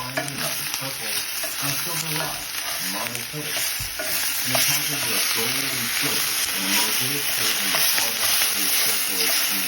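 Tofu and freshly added tomatoes sizzling in a hot frying pan, a steady frying hiss that grows a little louder over the first few seconds.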